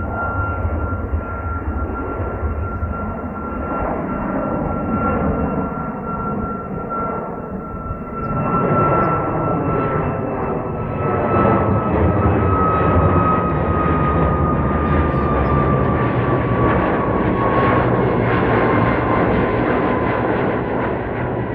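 Jet aircraft passing by: a steady engine roar that grows louder about eight seconds in, with a high fan whine that slowly falls in pitch as it goes past.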